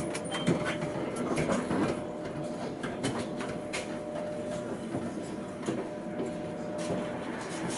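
Cab interior of a Tatra K2P tram standing at a stop: a steady thin whine that stops about seven seconds in, over background noise with scattered clicks and knocks.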